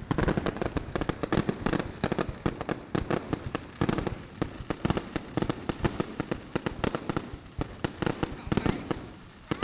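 Aerial fireworks bursting overhead: rapid, dense bangs and crackles, several a second, thinning slightly near the end.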